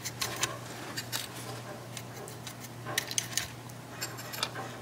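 Stiff paintbrush scrubbing and dabbing weathering powder onto the plastic end of an HO-scale Athearn SD40-2 model locomotive: short scratchy ticks in irregular clusters, about four bursts over a few seconds.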